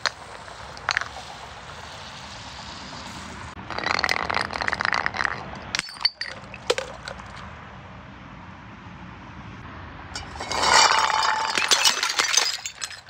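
Glass breaking and shards clinking: a burst of crunching and clinking about four seconds in, and a louder one near the end with a brief ring of glass.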